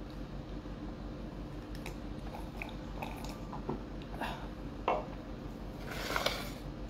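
Quiet swallowing and mouth sounds of a man drinking from a glass, with scattered small clicks. A light knock just before the five-second mark comes as the glass is set down on the wooden table.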